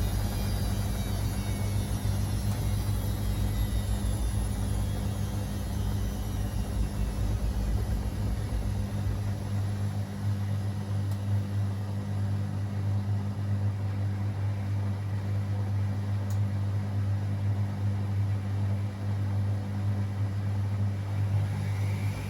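Beko WA 1050 washing machine running, with a steady low hum throughout. Its motor whine falls away over the first several seconds as the drum slows, then starts rising again near the end as it speeds up.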